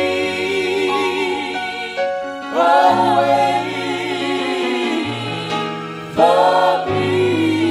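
Gospel music with a choir singing long held phrases over sustained chords; new phrases swell in about two and a half seconds and six seconds in.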